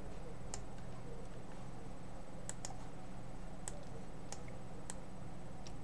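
A handful of short, sharp clicks at irregular intervals, two of them close together about two and a half seconds in, over a steady low hum and a faint high-pitched whine.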